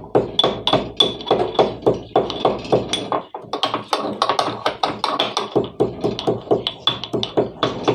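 Pestle pounding roasted cloves in a mortar to a fine powder: even strikes, about three a second, with a faint ringing note over the hits and a short break about three seconds in.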